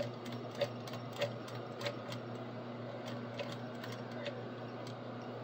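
Industrial sewing machine stitching slowly through thick nylon webbing: a series of irregular sharp clicks from the needle and feed, loudest in the first two seconds, over a steady motor hum.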